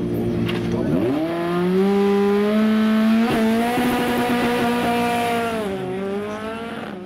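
Formula Renault single-seater race car's engine held steady on the start line, then launching: the pitch climbs about a second in and stays high as the car pulls away, with a brief click about three seconds in. It then drops and fades as the car drives off up the hill.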